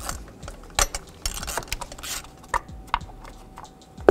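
Irregular clicks and light knocks of hand tools and engine parts being handled while ignition coils are worked on.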